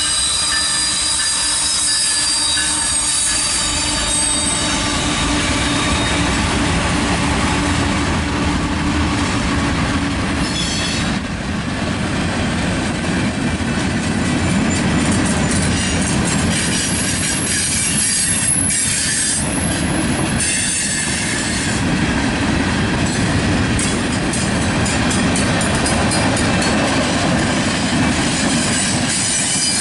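Mixed freight train of covered hoppers, flatcars and tank cars rolling past: a steady rumble of steel wheels on rail with repeated clacking over rail joints. A CN GE ES44AC diesel locomotive draws away in the first few seconds, and a high wheel squeal rises about two-thirds of the way through.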